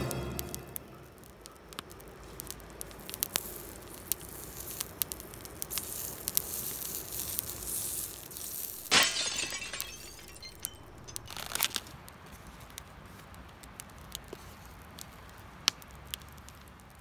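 Campfire wood crackling with many sharp pops, over the faint sizzle of a lump of fat being rubbed across a hot steel griddle with chopsticks. About nine seconds in a louder hiss rises for about a second, with a shorter one a little later.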